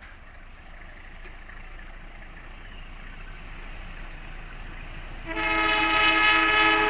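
A GE CC 206 diesel-electric locomotive approaches, its rumble growing steadily louder. About five seconds in its air horn sounds, a loud steady chord held to the end.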